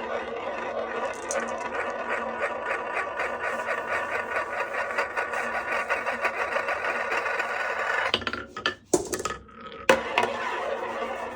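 Glass marbles rolling along a HABA wooden marble run, a steady fast rattle on the wooden track. Near the end it drops away briefly, with two sharp clacks about a second apart, then the rolling rattle goes on.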